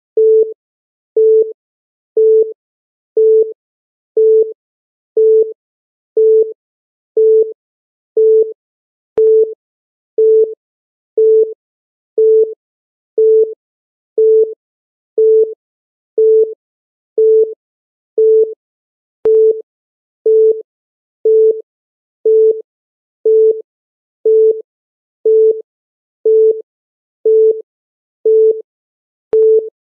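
Countdown timer beeping once a second: a short electronic beep at one steady mid-low pitch on each tick, with a faint click about every ten seconds.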